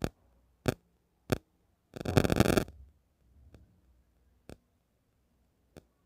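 Control knobs being pushed and worked onto the valve spindles of a gas stove: separate sharp clicks, with a short rapid clatter about two seconds in.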